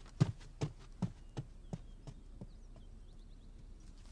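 Footsteps of boots on a hard floor, walking away at a brisk, even pace of about two and a half steps a second, growing fainter until they die out a little over halfway through.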